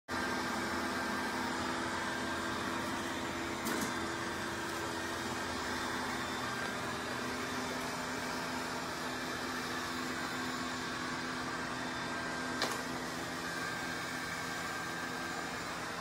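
Dreame D10 Plus Gen 2 robot vacuum running, a steady whirring hum from its suction fan and brushes, with two brief knocks, one about four seconds in and one later on.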